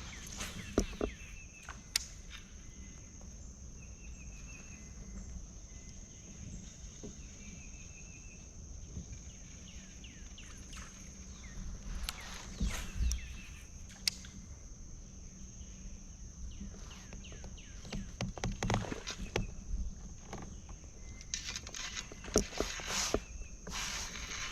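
Outdoor creek ambience: a steady high insect drone with short repeated chirps, and scattered knocks and rustles of gear handled in a kayak, busiest in the last third.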